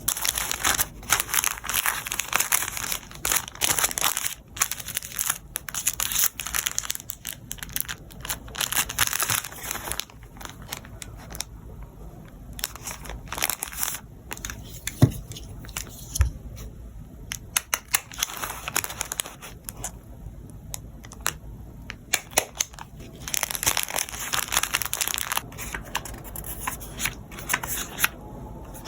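Packaging being handled by hand while packing an order: crinkling wrapping and tearing, in rapid bursts that are busiest for the first ten seconds and again near the end, with a quieter stretch of occasional clicks between.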